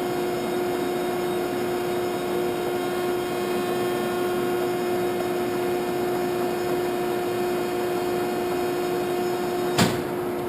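Landis 2R universal grinder running with a steady hum and a constant tone. A single sharp click comes near the end.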